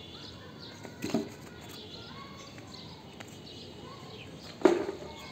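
Birds chirping in the background, with two short knocks, about a second in and near the end, the second the louder.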